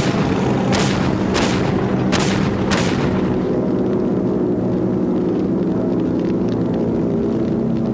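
Battle sound effects in a war film: four sharp shots about two-thirds of a second apart over a constant low rumble. After them come sustained low tones of a music score.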